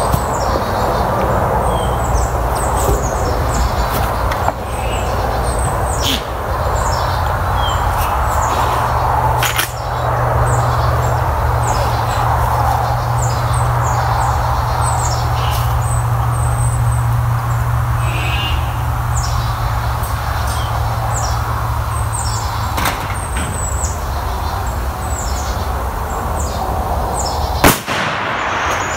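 A single shot from a Marlin 1895SS lever-action rifle in .45-70 Government about a second before the end, a sharp crack and the loudest sound. Before it, small birds chirp repeatedly over a steady low rumble, with a few faint clicks.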